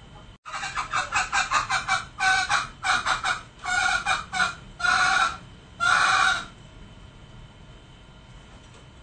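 Male green junglefowl calling: a fast run of short notes, about eight a second, for roughly a second and a half, then a few longer, louder call notes, the last ending about six and a half seconds in.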